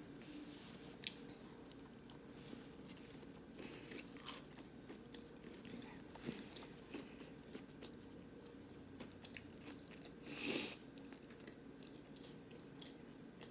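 A person chewing a battered jackfruit nugget close to the microphone: faint, wet chewing with many small crunches and mouth clicks, and one louder crunch about ten seconds in.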